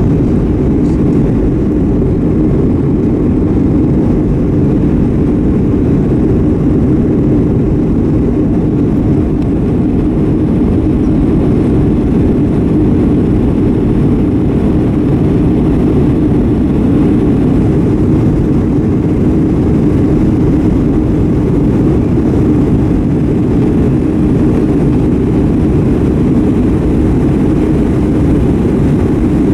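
Boeing 757-200 cabin noise during the climb after takeoff: a steady, loud, low drone of the jet engines at climb thrust and the rush of air past the fuselage, heard inside the cabin.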